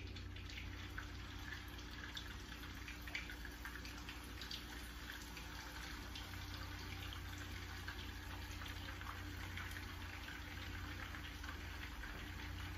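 Ground-beef meatballs sizzling in hot oil in a frying pan, a steady hiss full of small crackles, with a steady low hum underneath.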